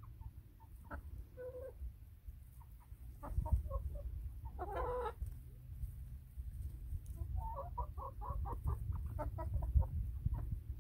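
Chickens clucking: scattered short clucks, a longer call about five seconds in, then a quick run of clucks near the end, over a low rumble.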